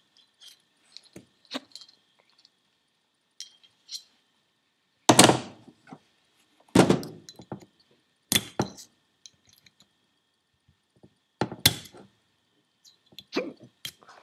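Metal tools and a steel C-clip clicking and knocking against a Holset HX40 turbo bearing housing while an inner bearing C-clip is worked into its groove with pliers and a small screwdriver. Light clicks run throughout, with about six louder sharp metallic knocks, two of them in quick succession.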